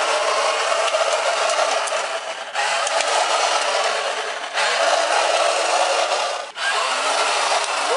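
Chicco ride-on toy scooter making a loud rushing, grinding noise that cuts and restarts abruptly about every two seconds.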